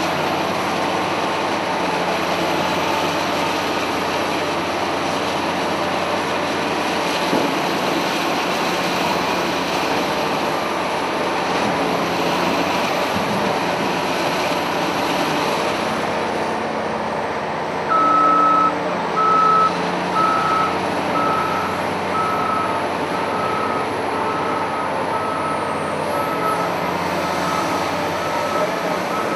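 Large wheel loader's diesel engine running steadily under work. A little over halfway through, a reversing alarm starts beeping at about three beeps every two seconds and grows fainter as it goes.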